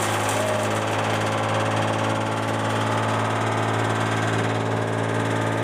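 Engine running at a steady speed with a constant low hum, driving a wood and cotton-stalk cutting machine.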